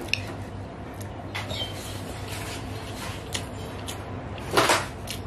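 Close-miked eating sounds: fingers squishing and mixing rice with egg and poppy-seed paste on a plate, with small clicks and chewing, over a steady low hum. A louder noisy burst comes shortly before the end.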